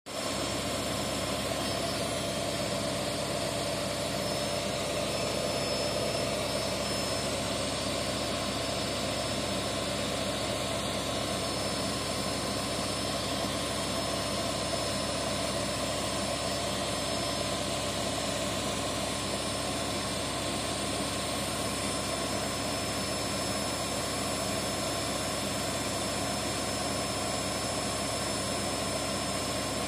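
Gorenje SensoCare WA974 front-loading washing machine on its 1400 rpm spin, the drum turning at a steady high speed: a constant whine over a rush of air and water.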